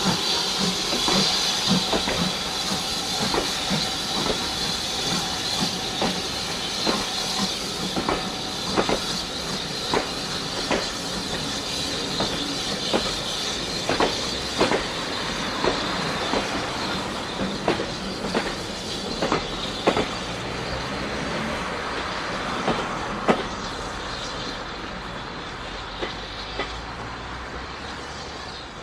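BR Standard Class 4 2-6-4 tank steam locomotive 80080 pulling away with a train of carriages: a loud steam hiss at first that dies down, then the coach wheels clicking over the rail joints as the carriages pass, getting quieter as the train draws away.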